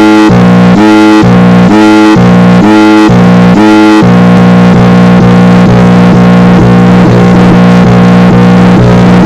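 Loud synthesized alert tone of a homemade emergency-alert alarm. It switches rapidly back and forth between two low chords, then settles into one steady held chord about four seconds in.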